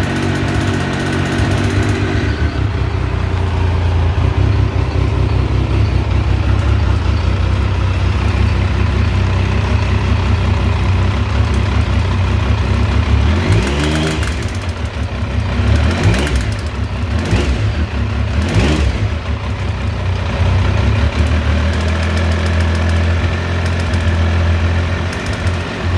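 Triumph T595 Daytona's 955 cc three-cylinder engine idling, with about four quick throttle blips in the middle. The engine is making a noise whose cause the owner is asking about.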